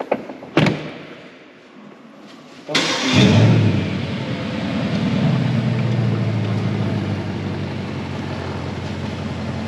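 A short knock about half a second in, then the Bentley Continental GT's 4.0-litre twin-turbo V8 starts near three seconds in, flares loud and settles into a steady idle.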